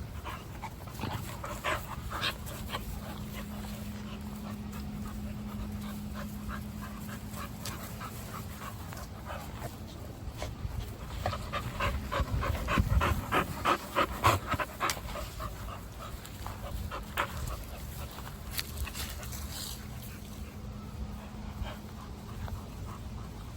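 Dog panting, with a run of quick, even breaths, loudest around the middle.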